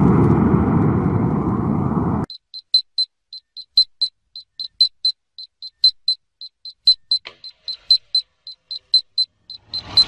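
Rushing noise of the rocket motor's launch blast that cuts off abruptly about two seconds in. Then comes rapid electronic beeping at one high pitch, about five short beeps a second and uneven in loudness, from the rocket's onboard electronics heard through the rail-mounted camera.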